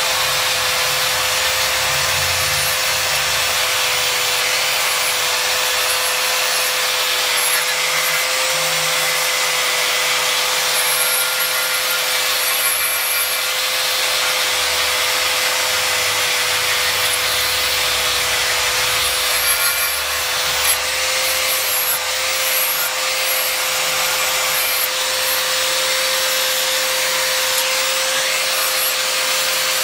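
Angle grinder running at steady speed, its abrasive disc grinding rust off the steel blade of a Japanese cleaver: one constant motor whine over a dense hiss of abrasion.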